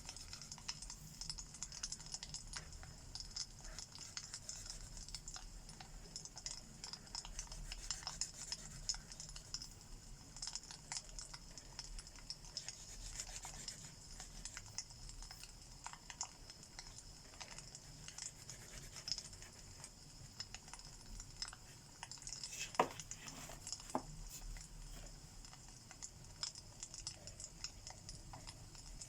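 Crackling wood fire with many small pops over a low rumble, mixed with the scratch of alcohol-marker nibs on paper. Two sharper knocks come a little past two-thirds of the way through.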